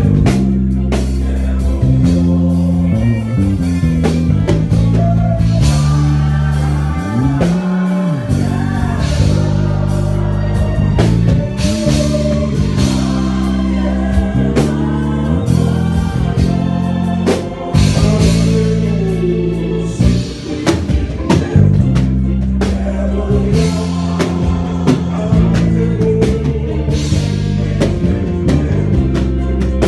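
A live band playing with a singer: a drum kit keeping a steady beat, a bass line moving under it, guitar, and a voice singing over the top.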